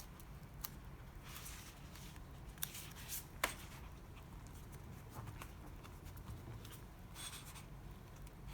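Quiet handling of paper: soft rustles and a few light clicks, the sharpest about three and a half seconds in, over a faint steady low hum.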